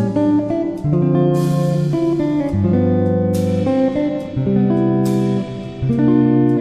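Background music led by a guitar, with sustained notes changing about once a second and a cymbal-like crash every couple of seconds.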